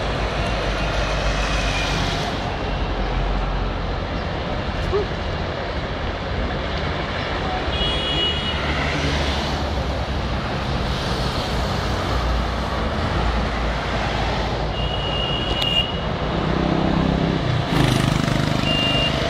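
Steady noise of highway traffic passing below: engines and tyres of cars, motorcycles and buses. A few short horn toots sound, about 8 seconds in, around 15 seconds, and again near the end.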